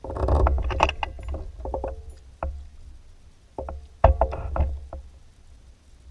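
Knocking and clattering on a kayak in two bursts about four seconds apart, over a low rumble.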